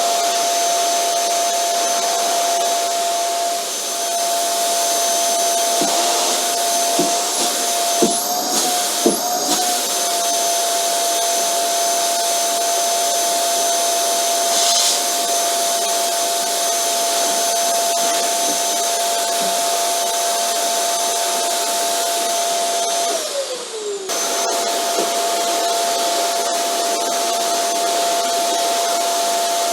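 Vacuum cleaner running steadily: a motor whine over airy suction hiss. There are a few light knocks in the first third. Near the end the whine briefly sags in pitch and level, then picks back up to its steady note.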